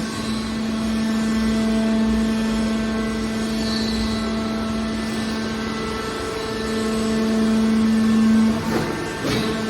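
Metal recycling press baler running: a steady, pitched machine hum from its hydraulic drive that swells louder about two-thirds of the way in, with a few brief knocks near the end.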